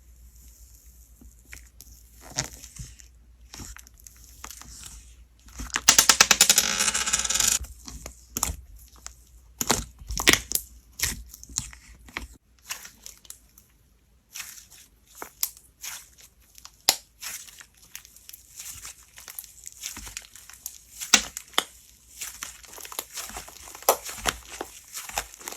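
Slime being squeezed and worked by hand, giving scattered sticky clicks and pops, with a dense run of rapid crackling about six seconds in.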